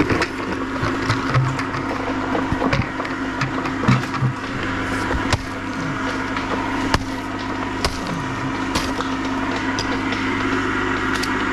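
Hatchet chopping fish frames against a wooden log round: a series of sharp, irregular chops about one to one and a half seconds apart, breaking up the fish for berley. The chops stop near the end.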